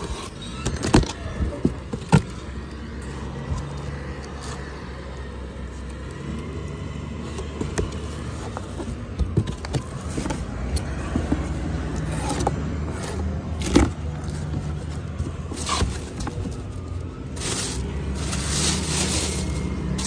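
Cardboard speaker boxes being opened by hand: packing tape slit and pulled, cardboard flaps scraping, with a few sharp clicks and knocks about a second in, two seconds in and around fourteen seconds. Near the end the plastic bag around the speaker driver rustles. A steady low hum runs underneath from a few seconds in.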